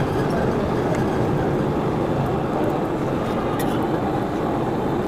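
Steady background noise, strongest low down, with a few faint clicks.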